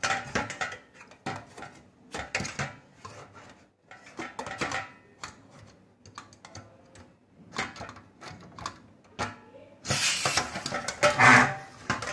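Butane canister being handled and seated into a Hans portable gas stove's steel canister compartment: repeated light metallic clicks and scrapes. A louder stretch of scraping and clattering comes near the end.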